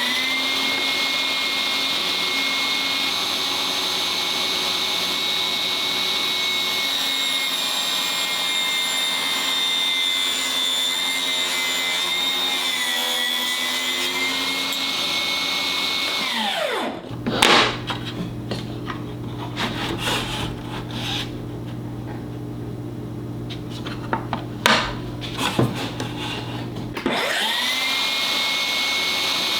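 Milwaukee M18 cordless table saw running at full speed with a high steady whine. The pitch sags slightly about 12 to 14 seconds in as the blade cuts through plywood, then the saw winds down about 17 seconds in. A lower steady hum and a few knocks follow, and near the end the saw spins up again and runs at speed.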